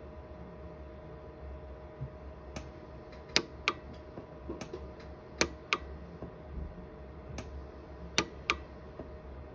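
Orion 150s pulse arc micro TIG welder firing single weld pulses onto a silver ring: about nine sharp snaps, some in quick pairs, starting a couple of seconds in, over a faint steady hum. Each snap is one spot weld filling porosity pits at a low energy setting.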